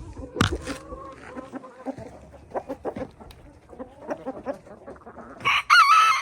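Chickens clucking in short calls, with a sharp sound about half a second in, and a rooster crowing loudly for about a second near the end.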